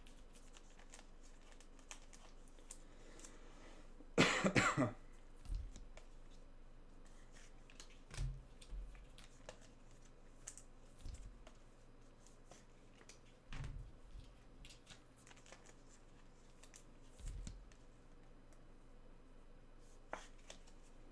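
A person coughs once, briefly and loudly, about four seconds in. Around it, soft scattered clicks and a few dull low bumps of cards and packs being handled.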